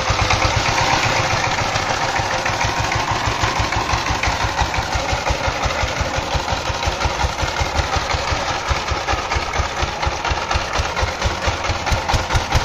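Sifang two-wheel power tiller's single-cylinder diesel engine running steadily under load as it pulls a trolley, with a fast, even chug. The chug grows a little stronger near the end.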